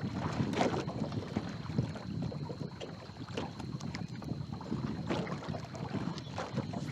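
Wind buffeting the microphone, with small waves lapping and slapping irregularly against the hull of a fishing boat; a faint steady high tone runs underneath.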